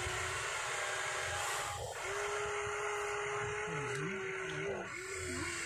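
Huina radio-controlled toy excavator's electric motors whining steadily as the boom and bucket move, the pitch dipping and rising a few times in the second half.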